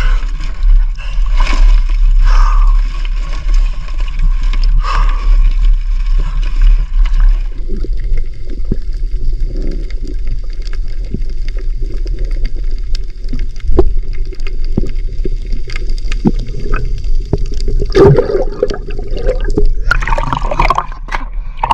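Water sloshing and splashing close to the microphone, turning muffled and gurgling with scattered knocks about seven seconds in as the phone goes underwater. Near the end, a loud splash as a hand grabs a blue crab and lifts it out of the water.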